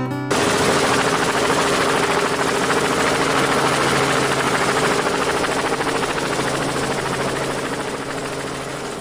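Helicopter rotor and engine noise, loud and steady, cutting in abruptly just after the start and slowly fading over the last couple of seconds.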